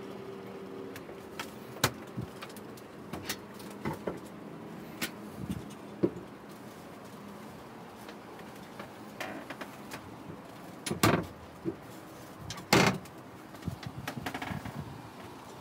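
Small cabinet and freezer doors being opened and shut: scattered light clicks and knocks, with two louder knocks about eleven and thirteen seconds in, over a faint steady hum.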